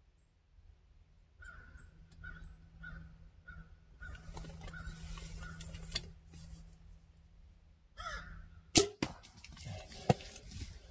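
A bow shot at a deer: one sharp, loud crack about three-quarters of the way in, then a second sharp knock a second later among rustling leaves as the deer bolts. A few faint short calls sound in the first few seconds.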